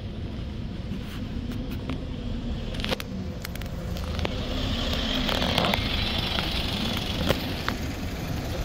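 Road traffic with a bus's engine running, growing louder over the second half. A high steady whine comes in about four seconds in, with a short hiss in the middle of it.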